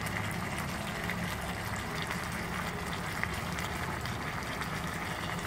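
Octopus adobo sauce simmering in a pan: a steady bubbling hiss with faint small pops and a low hum underneath.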